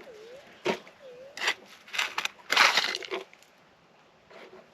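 Metal detector's target tone, a short dip-and-rise warble, sounding twice in the first second and a half as the coil passes over a shallow target. Between and after come sharp strikes and then, about two seconds in, a longer crunching scrape of a pick digging into rocky dirt, the loudest sound.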